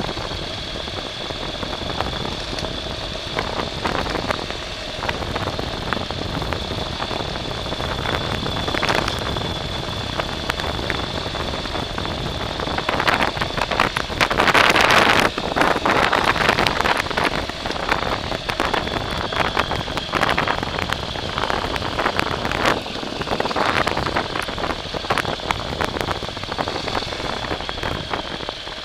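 A vehicle driving over rough ground: a steady high-pitched whine over continuous crackling and crunching from the wheels on dirt, with a louder burst of crackling for about a second midway.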